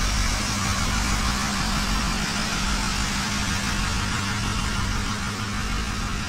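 Stationary GE C30-EMP 12-cylinder diesel-electric locomotives idling: a steady low engine rumble with a constant hum.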